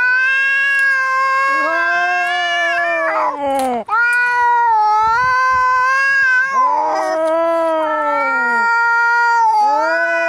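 Angry cats caterwauling in a fight: long, wavering yowls that bend down at their ends, a higher and a lower voice overlapping, with short hissing rasps between the cries and a brief break about four seconds in.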